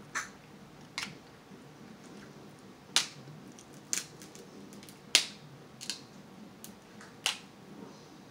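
Cooked crab leg shells cracking and snapping as they are broken apart by hand: about seven sharp cracks at irregular intervals, the loudest about three and five seconds in.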